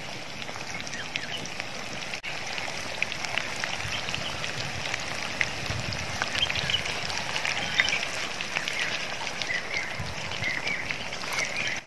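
Flour-coated chicken pieces deep-frying in a large pot of hot oil: a steady sizzle dotted with many small crackles and pops.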